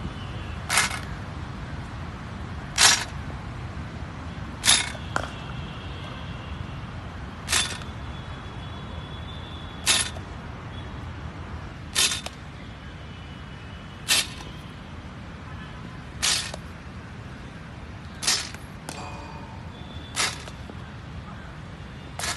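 Cricket ball smacking sharply about every two seconds during a slip-catching drill with a rebound net, over a steady low background rumble.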